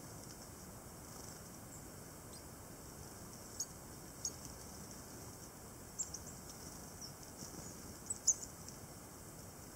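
Coal tits giving short, very high, thin calls, scattered through the second half at about one or two a second, over a faint steady background hiss.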